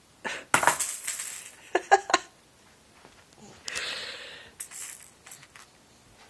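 A plastic baby rattle with beads sealed in clear balls rattles and clatters in a few short bursts as it is shaken and tossed, with faint clicks later as it is handled again. A soft rushing sound comes around the middle.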